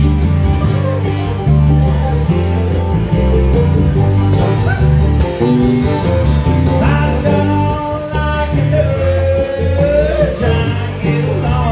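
A live bluegrass band playing: banjo, fiddle, mandolin, acoustic guitar and electric bass guitar together. A male voice comes in singing at the microphone about halfway through.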